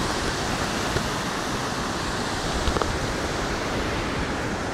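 Steady rush of a mountain torrent, with two short clicks about one and three seconds in.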